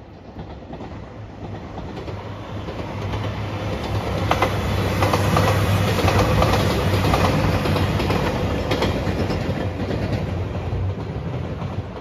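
JR Shikoku 2700 series diesel express train passing by: a low engine drone and wheel noise grow louder as it approaches, peak as it goes past, then fade. A few sharp clacks of wheels over rail joints come near the middle.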